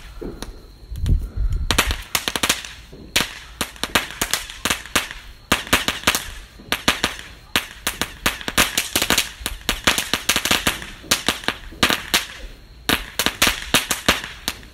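Ground firework crackling with rapid, irregular sharp pops, several a second, starting about two seconds in and going on with a few short pauses.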